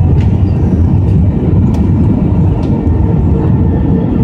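Airbus A319-100 cabin noise on short final, heard from a seat beside the wing: a loud, steady, low rumble of engines and rushing air, with a few faint ticks.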